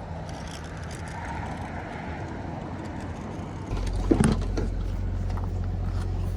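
Steady outdoor hiss, then just past halfway a car's engine hum comes in suddenly and runs steadily, with a couple of short knocks.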